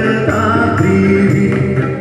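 Live performance of a Malayalam devotional song: a man sings a sustained, wavering melodic line into a microphone over steady band accompaniment.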